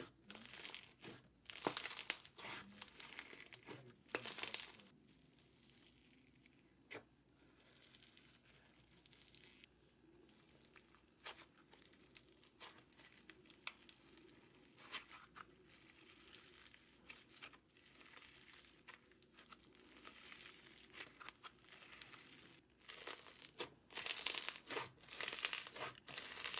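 Teal microfoam slime full of tiny foam beads being stretched, squeezed and pressed by hand: very crunchy, irregular crackling and popping of the beads and air bubbles. The crackles come thick in the first few seconds and again near the end, sparse and faint in between.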